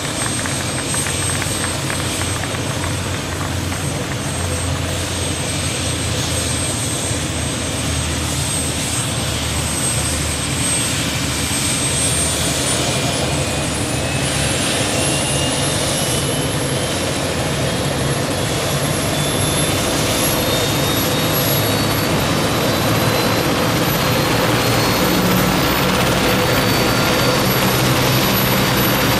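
Helicopter engines starting up on the ground, a whine that rises in pitch about twelve seconds in and keeps climbing as the sound slowly grows louder, ahead of lift-off.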